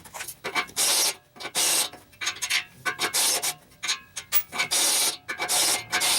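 Repeated rasping scrape strokes at an irregular pace, some short and some about half a second long, with no motor tone.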